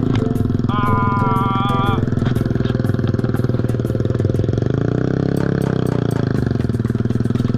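Yamaha NMAX 155 scooter's single-cylinder engine running under way, its pitch rising and falling about five seconds in. A steady high tone sounds for about a second near the start.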